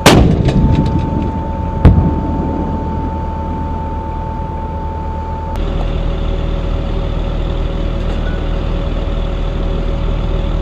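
The 105 mm rifled cannon of an M1128 Stryker Mobile Gun System fires once: a very loud blast that rings out and dies away, followed by a second sharp bang about two seconds later. After that the vehicle's diesel engine runs steadily.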